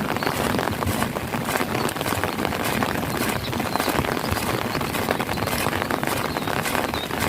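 Heavy rain falling steadily, with a dense patter of drops splashing into puddles and standing water.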